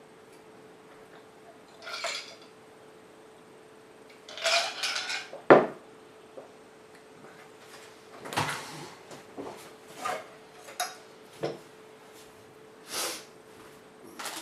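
Dishes and utensils being handled: scattered clatter and rustling, with one sharp knock about five and a half seconds in, over a faint steady hum.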